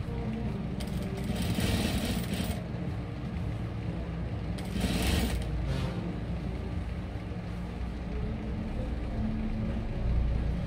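Juki industrial sewing machine stitching a collar band onto a neckline, running in short bursts about a second in and again around five seconds in, over the steady hum of its motor.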